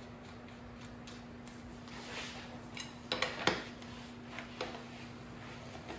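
Light metallic clicks and clinks of a long-handled wrench and axle hardware being handled at a dirt bike's rear axle, a few scattered taps with the sharpest about three and a half seconds in, over a faint steady hum.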